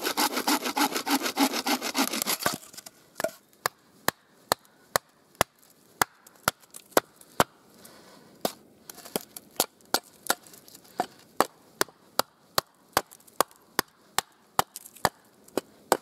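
Wooden bow saw cutting through a log in quick back-and-forth strokes, stopping about two and a half seconds in. Then a hatchet striking a split wooden board in sharp, regular blows, about two a second, hewing it and chipping off flakes.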